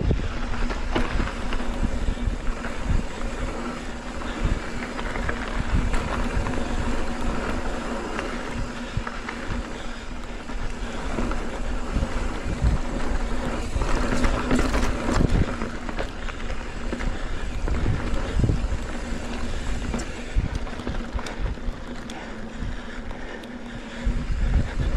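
Mountain bike riding a dirt trail: tyre noise with frequent knocks and rattles over bumps, and wind buffeting the microphone.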